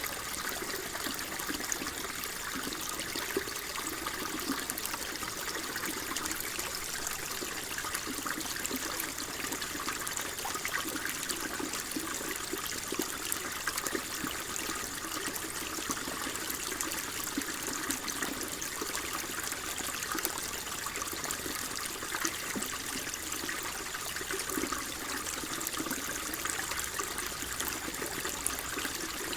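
Flowing water trickling and burbling steadily, an even stream of small splashes with no break.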